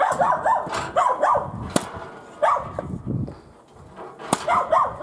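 A dog barking repeatedly in quick clusters, with two sharp knocks, about two seconds in and near the end, from the spring-loaded mechanical log splitter's blade striking a log.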